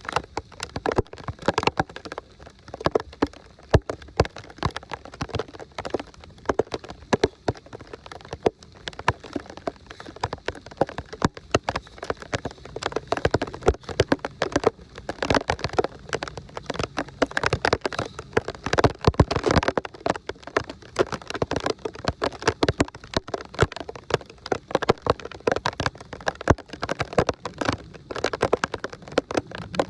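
Heavy rain pattering, with many sharp irregular clicks and knocks.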